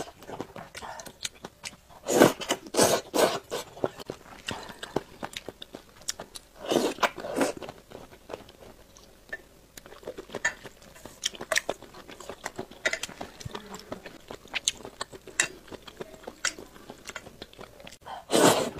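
A person slurping noodles and chewing, close-miked: several loud slurps (about two, three and seven seconds in, and again near the end) with wet chewing and lip-smacking clicks between.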